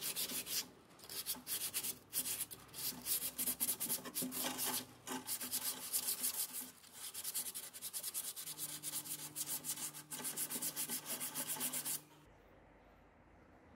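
Hand-rubbing rust off a tubular iron chair frame with an abrasive: rapid scratchy back-and-forth strokes in several runs, with short pauses between them. The rubbing stops abruptly about twelve seconds in.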